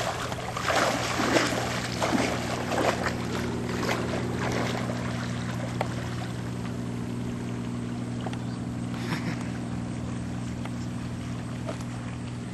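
Water splashing and sloshing as people wade into waist-deep water, busiest in the first few seconds and then settling, over a steady low hum.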